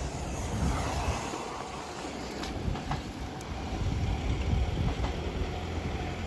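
A freight train running past on the rails: a steady rumble of wagons and wheels.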